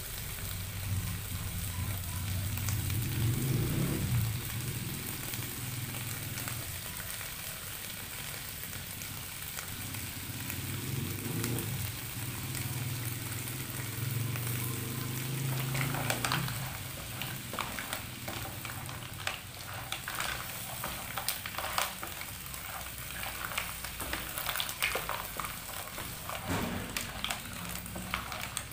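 Mussels in their shells sizzling and steaming in a hot non-stick wok, a steady frying hiss. From about halfway through, sharp crackles and pops join it, and near the end a wooden spatula stirs the shells against the pan.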